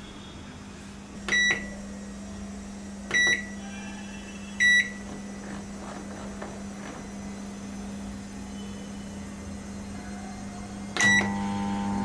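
Microwave oven control panel beeping three times as the cook time is keyed in. About eleven seconds in comes a fourth beep and the oven starts: its steady running hum begins as it heats the tea.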